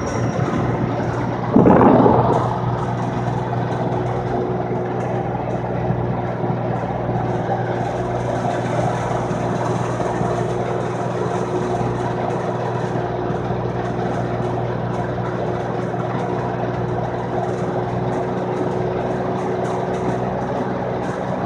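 Steady engine hum and road noise heard from inside a moving vehicle. About one and a half seconds in, a sudden loud burst of noise fades away within a second.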